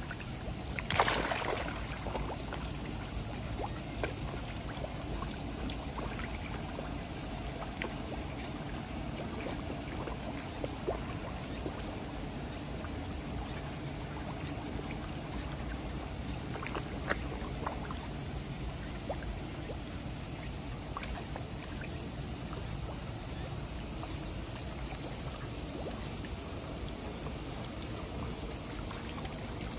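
Koi crowding at the surface of a pond, stirring and splashing the water, with a few short sharp splashes, the loudest about a second in. A steady high hiss lies under it.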